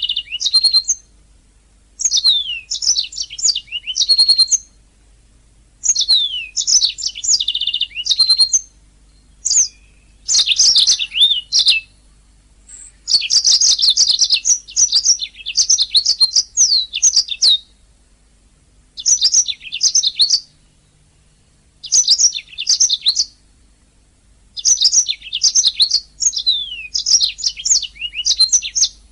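Domestic canary singing: bursts of rapid high trills and chirps lasting a second or a few seconds, broken by pauses of about a second between phrases.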